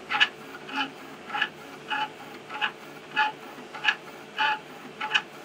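Celeritas high-speed 3D printer's stepper motors whining in short pitched bursts about every half second as the print head sweeps back and forth, printing a high-speed first layer at about 200–300 mm/s. A faint steady low hum runs underneath.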